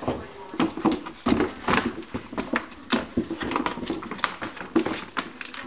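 A springer spaniel puppy's claws scrabbling against a plastic storage tub while the tub and the rubber toys inside it knock about: a quick, irregular run of clicks, scrapes and knocks with a few heavier thumps.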